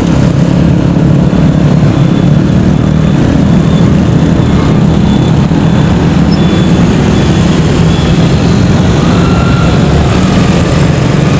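An engine running steadily nearby, a continuous low rumble with no change in speed.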